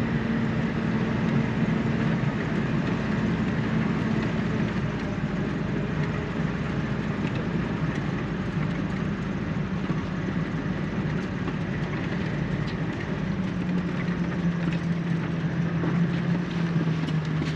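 Engine and drivetrain of a 2018 Coachmen Leprechaun Class C motorhome, heard from inside the cab while it drives across wet beach sand. A steady engine hum sits over tyre and road noise, and the engine note changes about five seconds in and again around thirteen seconds.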